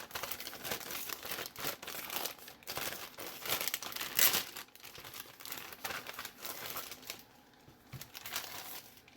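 Packaging being crinkled and handled as a journal is unwrapped, a dense crackly rustle that peaks about four seconds in and dies away in the last two seconds.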